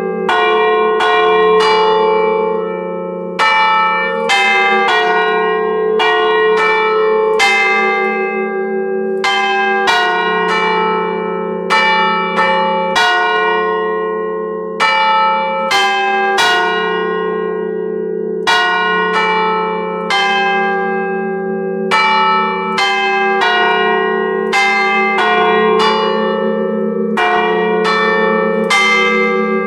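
Church bells chimed on an Ellacombe apparatus: hammers strike the hanging bells one after another in an uneven sequence, about one to two strokes a second. Each stroke rings on over a steady hum of the bells, heard loud and close in the belfry.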